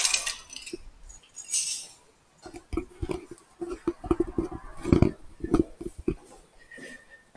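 Light clinking and rattling, then a run of irregular dull knocks and thumps for about three and a half seconds as things are handled.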